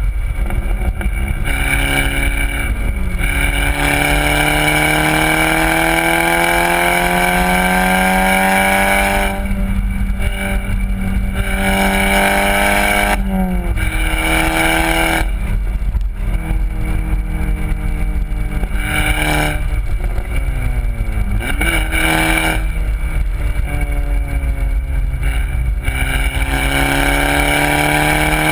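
VW Golf R's turbocharged four-cylinder engine through a Borla aftermarket exhaust, accelerating hard on track: the engine note climbs steadily, drops sharply several times as at gear changes, then climbs again near the end. Steady wind and road noise runs underneath.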